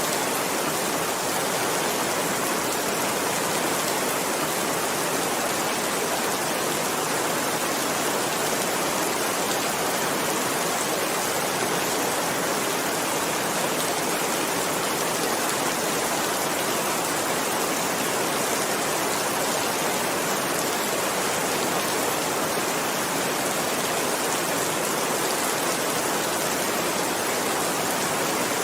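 Heavy rain falling, a steady even hiss with no change in strength.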